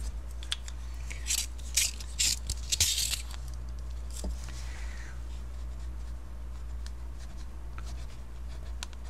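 Chunky woody colour pencil scratching on painted paper in several short, sharp strokes during the first three seconds, then a steady low hum.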